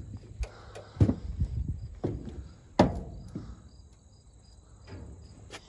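A handful of sharp knocks and clunks, the loudest about one second and nearly three seconds in, from people moving about and handling parts on an old combine harvester. Insects chirp faintly and evenly behind them.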